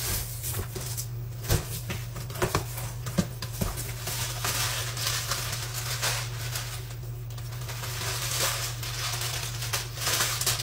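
A cardboard shipping box being handled and opened, then its crinkly kraft paper insulation liner rustling and crackling as it is pulled out. A few sharp clicks and knocks come in the first few seconds.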